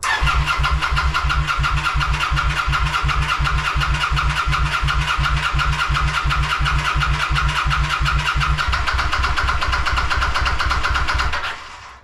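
Kawasaki VN900's V-twin turned over by its electric starter in one long crank of about eleven seconds, with a fast, even pulsing beat, and it never fires. The bike cranks but will not run: it is getting no spark and no fuel.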